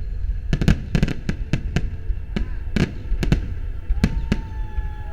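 Fireworks display: a rapid, irregular string of sharp bangs from bursting shells, about a dozen in five seconds, over a steady low rumble, with a whistling tone joining in near the end.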